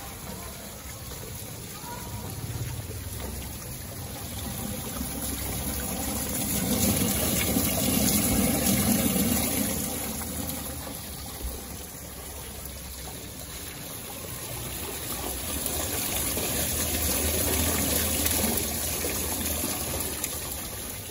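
Rooftop rainwater running through a NeeRain rainwater filter: a steady rush of water pouring down the filter screen, swelling louder twice as the flow rises and eases.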